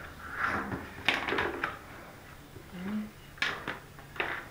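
Hard plastic toy pieces clicking and clattering as they are handled and snapped together, with a cluster of sharp clicks about a second in and more near the end.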